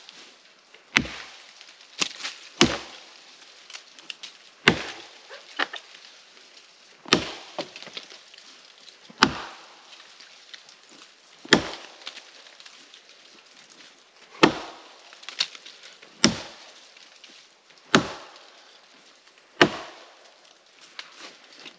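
Axe chopping into a fallen birch trunk: about a dozen sharp wooden strikes, spaced unevenly one to two and a half seconds apart.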